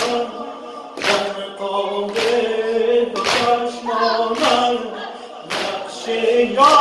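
Men's voices singing a Persian noha (Muharram mourning lament) without instruments, with a loud unison slap of mourners beating their chests (sineh-zani) about once a second.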